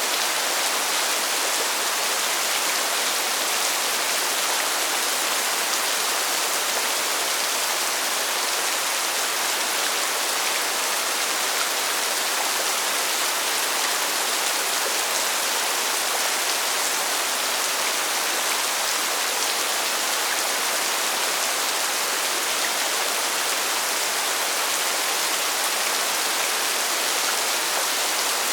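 Steady rainfall: a constant, even hiss with no single drops or thunder standing out.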